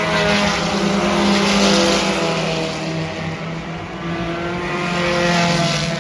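Several sport compact race cars' four-cylinder engines running at speed around a dirt oval. They swell louder as cars pass, about a second and a half in and again near the end.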